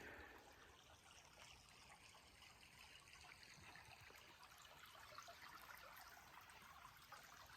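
Near silence with the faint, steady trickle of a creek running below.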